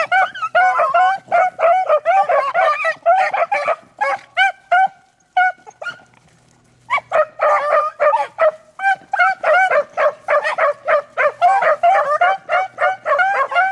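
A pack of beagles baying in quick, overlapping barks as they run a rabbit's scent trail. The barking thins out and nearly stops about halfway through, then the whole pack picks it up again.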